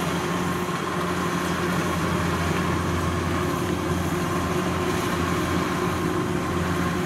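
Kubota DC-93 rice combine harvester running steadily under load as it cuts and threshes standing rice. Its engine and machinery make an even drone with a faint higher whine above it.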